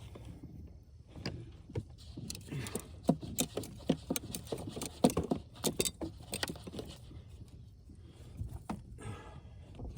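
Irregular clicks, knocks and rattles, several a second, from handling a big netted catfish in a boat, with the net and a treble-hooked lure clattering as the fish is worked on to free the bait. The knocking thins out near the end.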